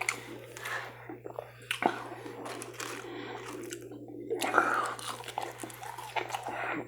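A person biting and chewing food close to the microphone, with crunching and small mouth clicks.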